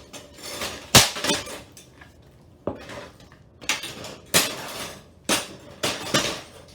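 A metal PC case being smashed: about eight heavy, irregularly spaced blows with clattering, clanking metal. The case is being beaten until it is wrecked.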